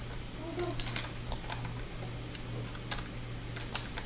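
Plastic LEGO bricks clicking and clattering irregularly as they are handled, with a steady low hum underneath.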